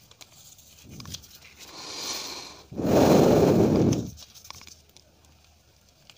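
A sheet of paper rustling and crinkling as it is pulled away across the desk, loudest for about a second in the middle, with a few light taps around it.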